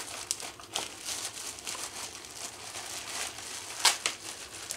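A clear plastic packaging bag crinkling and rustling as it is handled and pulled open, with a few sharper crackles; the loudest comes about four seconds in.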